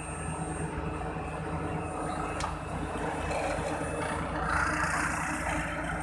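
Asphalt paver's diesel engine running steadily at close range, with a single sharp click about two and a half seconds in and a brief patch of hiss a couple of seconds later.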